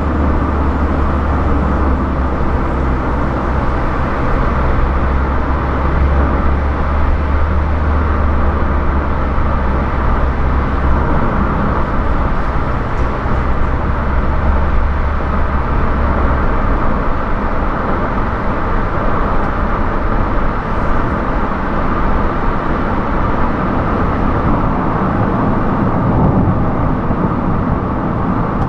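Car driving at highway speed: steady tyre and road noise with wind rush, and a deep rumble underneath that drops away a little over halfway through.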